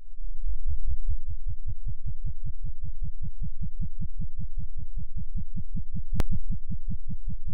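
Sound-design soundtrack of a deep, steady throbbing pulse repeating about five times a second, with a short sharp click about six seconds in.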